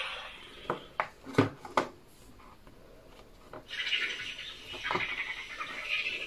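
Knocks and thumps of a board book's stiff pages being turned, then the book's small speaker playing a baby Maiasaura chirping and cheeping sound from its sound button.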